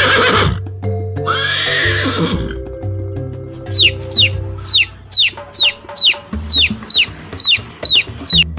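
A rooster's crow ends just after the start, and a second short rooster call follows about a second and a half in. From about four seconds in, a chick peeps repeatedly, about two high falling peeps a second, over steady background music.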